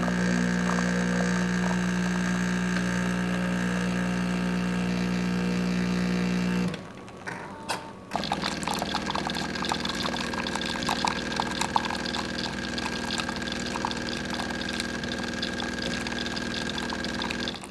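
Jura E8 super-automatic espresso machine brewing a coffee shot, its pump running with a steady low hum that stops about seven seconds in. After a short pause and a click, the machine starts dispensing hot water into the cup with a steady hiss and the splash of water pouring, which stops near the end.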